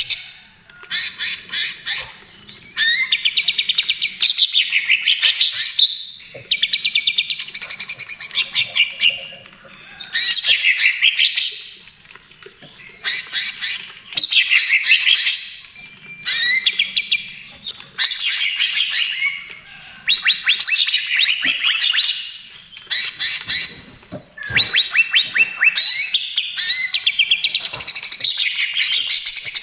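Green leafbird (cucak ijo) singing loudly in the rapid-fire 'trotol' style: chattering phrases of fast repeated notes, one every two to three seconds, with short pauses between.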